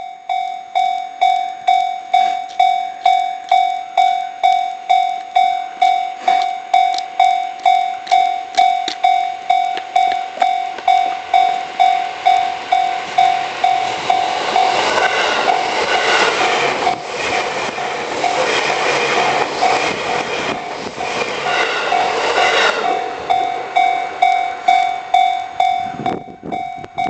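Japanese railway level-crossing warning bell ringing in an even, steady run of decaying dings. Midway a train passes over the crossing for about nine seconds, its wheels and cars clattering under the bell.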